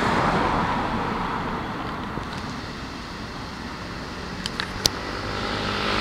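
Keikyu 1000-series electric train running away along the track after passing close by, its running noise fading over the first three seconds. A few sharp clicks come just before five seconds in, and the rushing noise grows again near the end.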